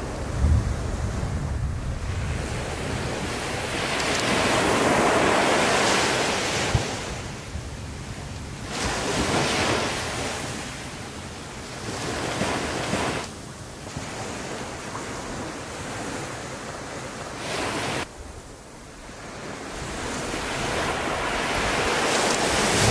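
Wind buffeting the microphone and surf on the shore in a field recording of Anak Krakatau erupting: a rushing noise that swells and fades over several seconds and breaks off suddenly three times. A low rumble sounds near the start.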